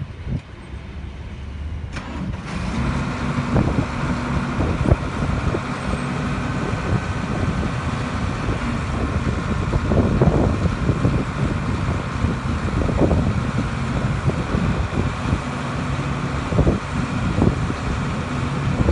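2006 New Holland TV145 tractor's diesel engine running, getting louder about two seconds in and then holding steady, with a thin steady whine over it and a few short knocks.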